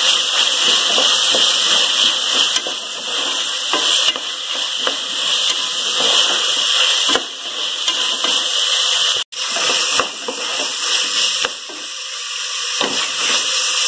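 Vegetables sizzling in hot oil and ghee in an aluminium pressure cooker while a spatula stirs them, with scattered clicks and scrapes of the spatula against the pot. The sound drops out for an instant a little past the middle.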